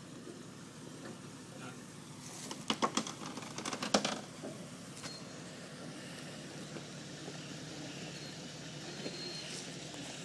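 Jeep Wrangler crawling down a rocky off-road track, its engine running low and steady. About two to four seconds in comes a burst of sharp knocks and clatters, the loudest sounds here.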